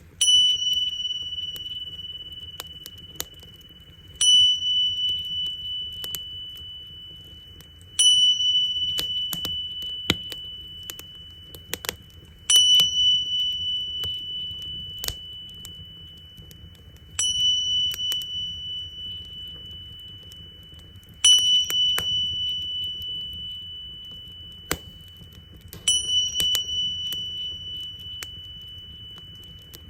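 Tingsha cymbals struck together seven times, about every four seconds. Each strike rings a high steady tone that fades slowly with a slight waver. Underneath, a crackling bonfire pops and snaps over a low rumble.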